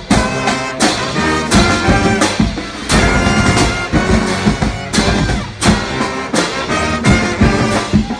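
Marching brass band playing: horns holding and shifting notes over drums that strike a steady beat.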